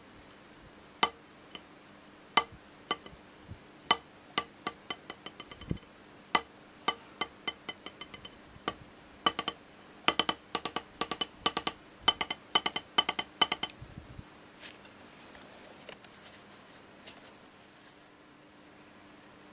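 Wooden Vic Firth drumstick striking a rubber practice pad with sharp clicking taps: single strokes about a second apart, one stroke left to bounce freely with the rebounds coming quicker and fading, then a run of fast strokes that stops near the end, leaving faint handling noise.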